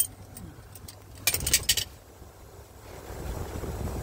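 Locking pliers clamped on a brake hose fitting, giving a sharp click and then, about a second in, a quick cluster of metal clicks and scrapes, with low handling rumble afterwards.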